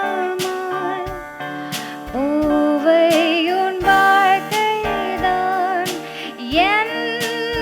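Live jazz band playing: a melodic line with vibrato and pitch bends over held chords, punctuated by drum hits.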